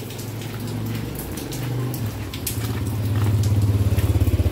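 A motorcycle engine approaching, its low hum growing louder and taking on a fast, even beat in the second half, with rain dripping and splashing around it.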